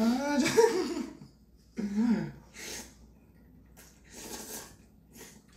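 A man laughing: a loud burst with wavering pitch at the start and a shorter one about two seconds in, followed by several short, breathy laughs.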